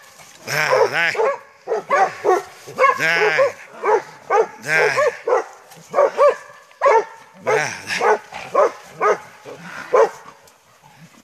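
Several hunting dogs barking in quick succession, about two or three barks a second at different pitches, as they hold a wounded wild boar at bay. The barking eases off near the end.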